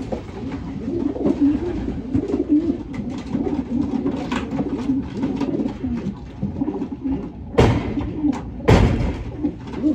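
Racing pigeons cooing in a loft, a continuous wavering murmur. Near the end come two loud, sudden noisy bursts about a second apart.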